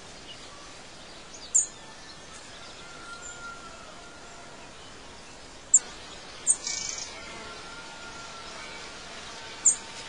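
Bird ambience: four short, high, sharp chirps spread through, with a few faint drawn-out whistles over a steady background hiss.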